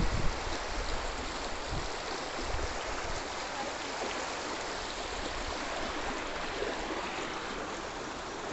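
Muddy floodwater rushing past in a steady hiss, with a few brief low rumbles near the start.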